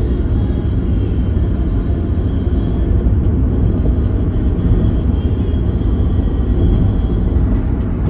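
A steady, loud low rumble with no distinct events or changes.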